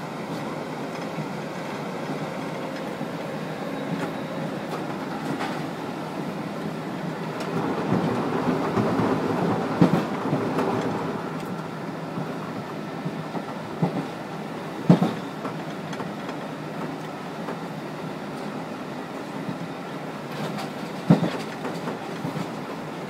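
London Underground A Stock train running along the track, heard from its driving cab: a steady rumble of wheels on rails that grows louder for a few seconds around the middle. Sharp clacks from the wheels come through three times, the loudest about fifteen seconds in.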